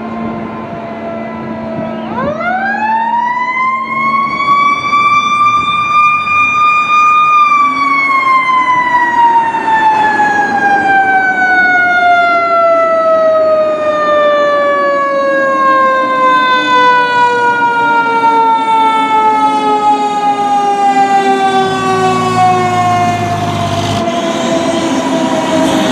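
Fire truck's siren winding up sharply to a high wail about two seconds in, then slowly coasting down in pitch for most of the time, the long wind-up and coast-down of a mechanical siren; it starts winding up again at the very end. The truck's diesel engine is heard as it passes close near the end.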